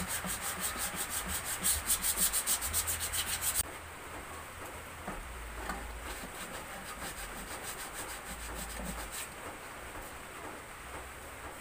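Wood being sanded by hand: quick, even back-and-forth strokes for the first few seconds, then softer, steadier rubbing.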